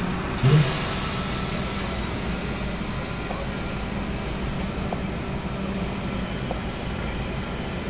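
Bus engine running steadily at low speed while the coach is manoeuvred, heard from inside the driver's cab. About half a second in there is a short loud hiss of air that fades over about a second.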